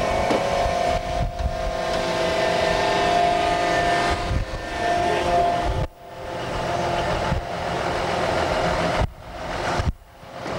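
NS DE II diesel-electric railcar moving slowly past close by: engine and running gear rumbling, with several steady high tones from the wheels and machinery. The sound breaks off sharply about six seconds in and again near the end.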